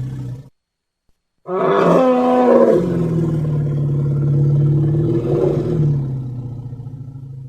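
Film-style dinosaur roar sound effect: one long, deep roar that starts suddenly about a second and a half in, bends in pitch early on, then trails off slowly. Before it, the end of another low, steady sound effect cuts off about half a second in.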